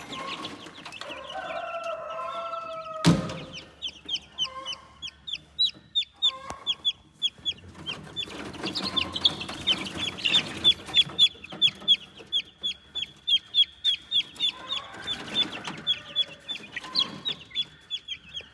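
Baby chick peeping loudly in a rapid, even series of short high peeps, about three a second, typical of a lone chick in distress, with chickens clucking around it. A sharp knock sounds about three seconds in.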